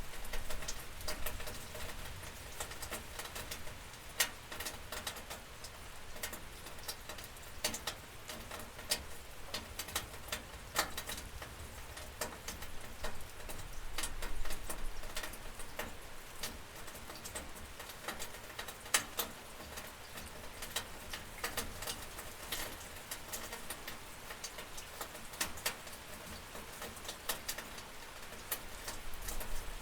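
Rain heard through a window: a steady patter with many separate drops ticking sharply against the glass and sill.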